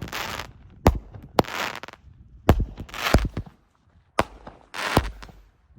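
Mad Ox Smoke Trails 16-shot firework cake firing shot after shot. Sharp launch reports come about every second or two, each followed by a crackling break in the air.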